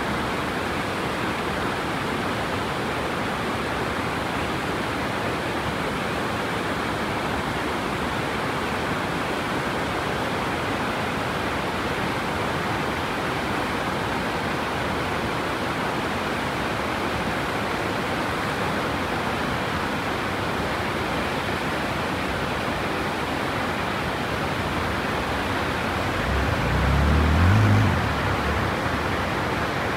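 Large waterfall: a steady, loud rush of falling water. Near the end, a low rumble swells briefly and fades.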